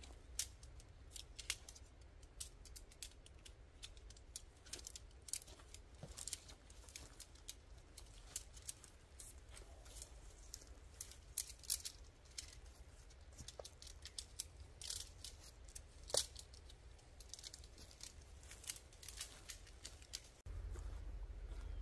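Faint, irregular crackling and rustling as a guy line is handled and feet move over dry pine needles, over a low steady rumble that gets louder near the end.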